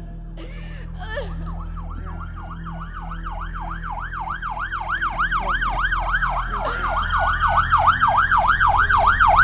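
Police car sirens approaching and growing steadily louder. One siren is in a fast yelp, rising and falling about three times a second, with a second siren in a slow wail rising beneath it.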